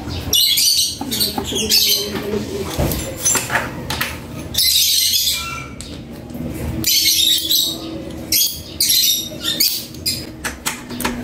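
Repeated short runs of metallic clicking and scraping from hand tools and hardware being worked at a scooter's rear shock absorber mount, each run about half a second long.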